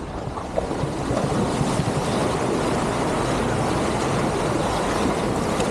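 Land Rover Discovery 4 driving along an unsurfaced green lane: a steady rumble of engine and tyres with wind noise, no single clear tone.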